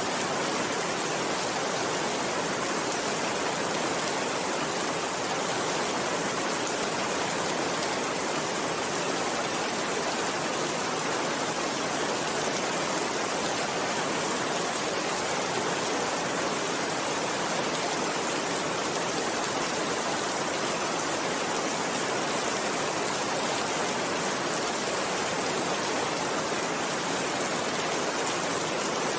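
Steady rainfall, an even hiss of many raindrops with no single drops or thunder standing out, unchanging throughout.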